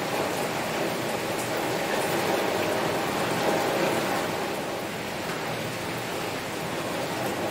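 Heavy rain falling on a window: a steady hiss of rain with faint ticks of single drops.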